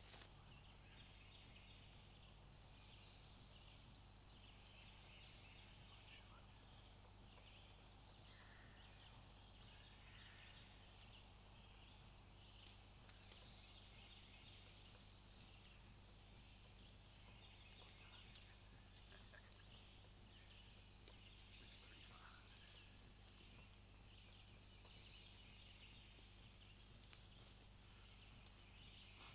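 Faint woodland ambience: a steady high insect drone, with a songbird singing a short phrase about every nine seconds.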